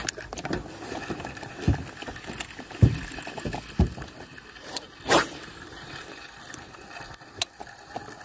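Penn spinning reel being cranked by hand, its gears and ratchet giving a steady mechanical clicking, with a few scattered knocks.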